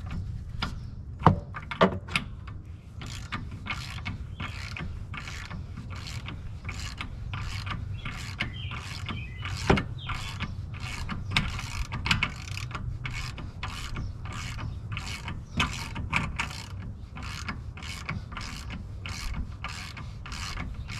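Hand ratchet wrench clicking in steady back-and-forth strokes, about two clicks a second, as a loosened fastener is wound off during a CV axle replacement. A few sharper metal knocks stand out, twice near the start and once about halfway through.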